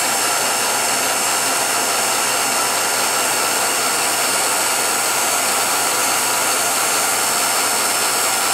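1949 Revere P-90 8mm projector running on its electric motor: a steady whirring hum with several fixed high whines, unchanging throughout.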